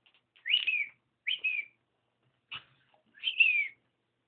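Cockatiel giving three short whistled chirps, each rising then falling in pitch, with a brief tap about two and a half seconds in.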